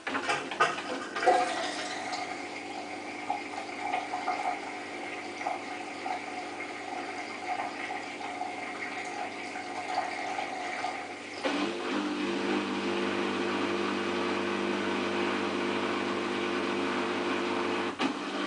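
Water flowing through a Samsung WF8804RPA front-loading washing machine: it starts abruptly with a few clicks and runs steadily, then changes to a fuller, louder sound with a low hum about eleven and a half seconds in.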